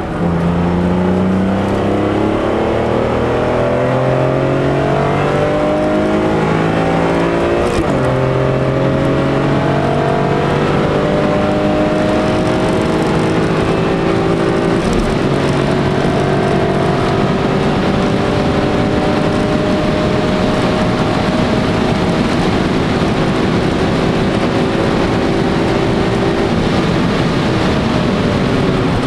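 BMW E46 M3's S54 straight-six engine under full throttle, heard from inside the cabin, its pitch climbing through the gears. It shifts up twice, about eight and fifteen seconds in, then climbs slowly in the higher gear, with road and tyre noise underneath.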